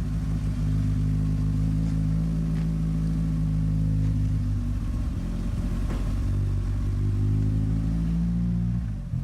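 1992 Mitsubishi Eclipse GSX's turbocharged 4G63 inline-four engine idling steadily, with a brief dip in the sound just before the end.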